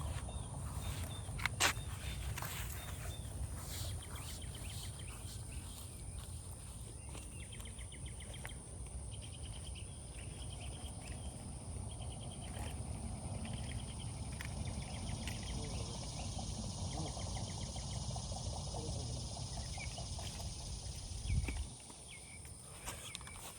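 Riverbank ambience: a low steady rumble under repeated small chirps of insects and birds, with a thin steady high buzz. A sharp click sounds about a second and a half in, and a dull thump comes near the end.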